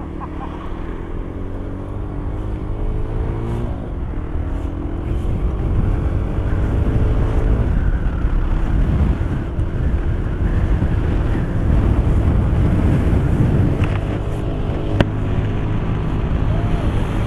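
Honda CB300 motorcycle engine pulling up through the gears, its pitch climbing twice with a gear change in between, then wind rushing over the microphone grows louder and covers it as highway speed builds.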